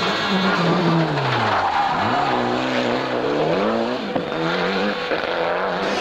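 Mitsubishi Lancer Evolution rally car's turbocharged four-cylinder engine revving hard at full throttle. The pitch falls and rises several times as the car changes gear and lifts and accelerates through corners.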